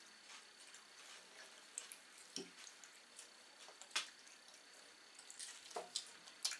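A small child eating bread, heard as faint mouth smacks and a few scattered small clicks; the sharpest click comes about four seconds in.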